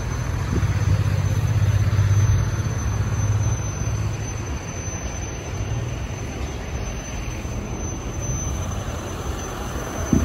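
City street traffic: a motor vehicle's low engine rumble swells up about half a second in and fades away after a few seconds over a steady background of traffic noise. There is a short sharp click near the end.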